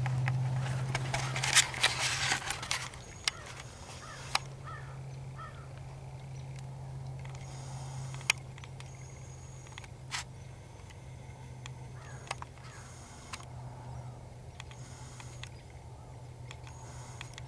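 Rustling and handling noise on a camcorder for the first few seconds, then a steady low hum with scattered small clicks.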